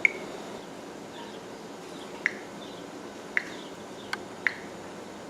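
Five short, sharp clicks of keys being pressed on a Samsung Brightside SCH-U380 cell phone's keypad, one near the start and four more about a second apart in the second half.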